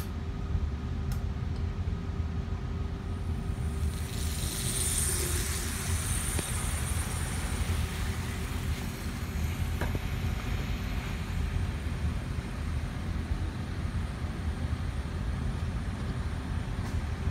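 Model train running on its track: the motor and wheels make a steady low rumble, with a brighter rushing sound from about four to seven seconds in as the train passes close.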